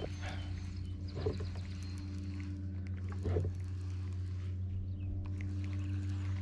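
Boat's electric trolling motor humming steadily, with a couple of brief knocks about a second and three seconds in.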